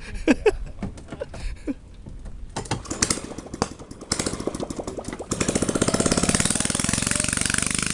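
A small engine starts up about two and a half seconds in. Its rapid, even firing pulses get louder twice, then it runs steadily for the last few seconds. A few scattered knocks come before it.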